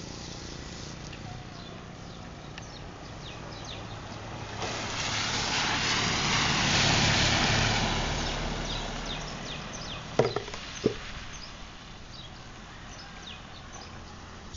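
A pickup truck driving past on a wet road: the noise of its engine and tyres swells up and fades away over several seconds. Just after it passes come two sharp knocks less than a second apart.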